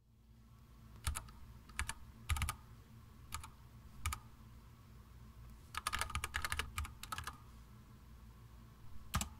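Typing on a computer keyboard: scattered key clicks in short bursts, with a quicker run of keystrokes a little past halfway.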